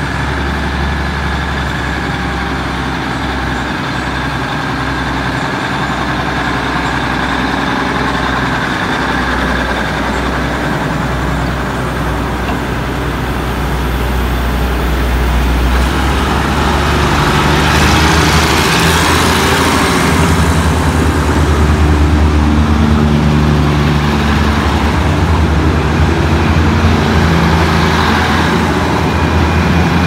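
Diesel railcar train's underfloor engines idling steadily, then rising in revs about halfway through as the train starts to pull out of the platform, with a hiss a second or two later.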